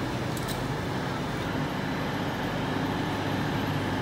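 Avanti West Coast Class 805 Evero train standing at the platform, giving off a steady low hum. Two faint ticks come about half a second in.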